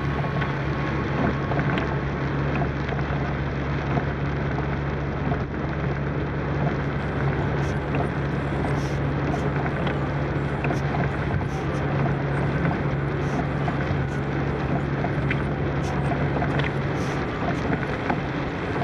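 Inside a car driving on a wet road in heavy rain: steady engine drone and tyre hiss, with raindrops ticking on the windscreen.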